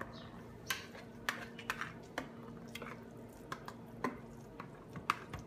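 Thick mashed cauliflower mixture being poured out of a mixing bowl into a glass baking dish, with about ten light, irregular knocks and clicks of bowl and dish.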